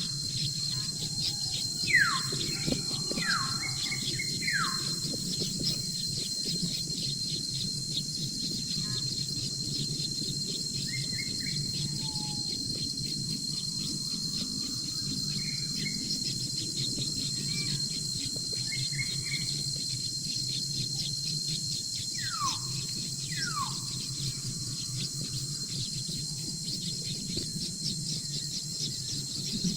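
Bird calls: short notes that drop sharply in pitch, a few in the first seconds and two more about three quarters of the way through. They sit over a steady high whine with fine ticking and a constant low hum.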